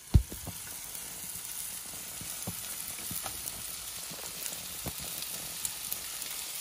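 Bacon-wrapped chicken rolls sizzling steadily in an aluminium grill tray on a hot gas grill, with scattered small pops. A single sharp knock sounds just after the start.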